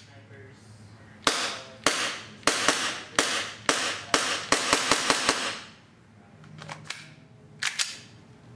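Elite Force Glock 19 gas blowback airsoft pistol by VFC firing a string of about a dozen sharp shots, each with a brief trailing hiss. The shots come slowly at first, then quicken into rapid fire. Two more shots follow near the end.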